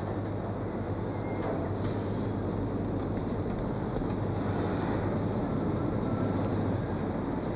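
Assembly-line machinery running: a steady rumble with a constant low hum and a few faint clicks.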